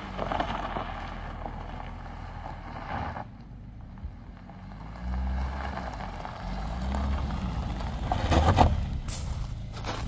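Kia Sorento SUV driving on a gravel road: tyres crunching over loose gravel and the engine's pitch rising and falling. It is loudest as it passes close, about eight and a half seconds in.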